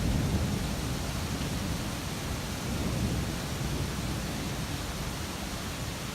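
Thunderstorm ambience: steady rain hiss under a low, rolling rumble of thunder that swells near the start and again about halfway through.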